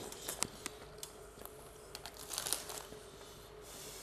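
Faint rustling and crinkling of take-away food packaging, with a few small scattered clicks over a low steady hum.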